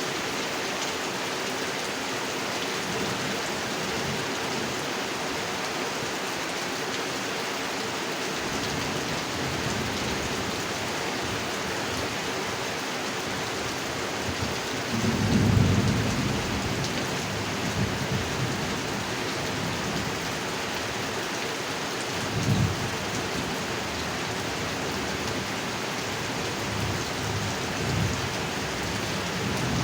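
Steady heavy rain falling on a pond. Low thunder rumbles in about a third of the way through, swelling loudest around the middle, with a shorter low clap a little later and fainter rumbles near the end.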